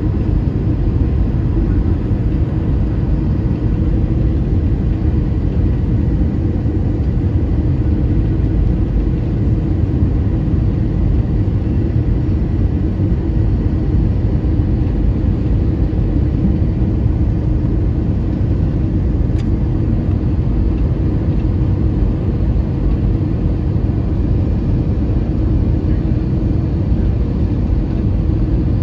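Airbus A320 cabin noise at a window seat beside the wing: the steady low rumble and hiss of the jet engine and airflow during the descent on final approach.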